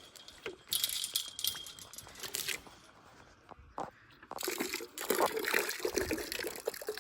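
Water poured from a gallon jug into a water bucket, splashing in two spells: one about a second in, and another from about four and a half seconds.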